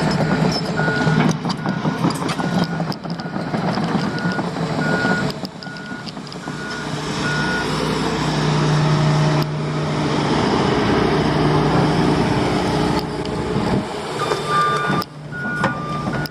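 Excavator's diesel engine running under load while a backup travel alarm beeps about every three-quarters of a second. The beeping stops partway through and the engine works harder. Near the end the beeping returns, joined by a second, lower-pitched alarm.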